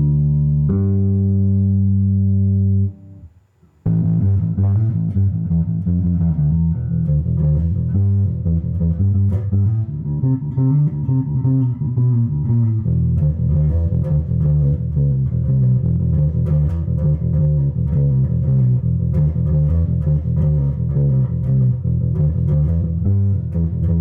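Rickenbacker 4004 Cii electric bass with humbucking pickups, played through an Orange AD200B Mk3 bass amp and 4x10 cabinet. It opens with a couple of long held notes, stops briefly about three seconds in, then plays a fast run of plucked notes.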